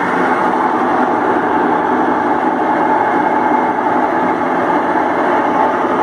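GE 15 kg top-loading washing machine spinning its basket: a steady mechanical running noise with a constant whine held at one pitch.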